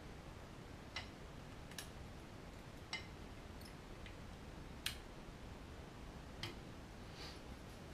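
Several sharp little clicks and taps, irregularly spaced, from a small screwdriver working on the plastic bogie of an O gauge model locomotive; the loudest comes about five seconds in.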